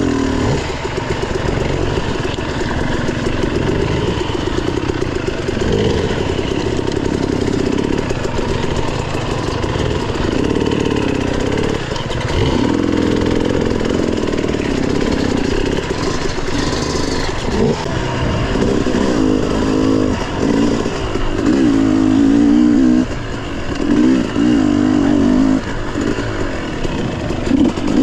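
Dirt bike engines revving in repeated surges, the throttle opened and eased off over and over so the pitch keeps rising and falling, with a few brief cuts in the revs near the end.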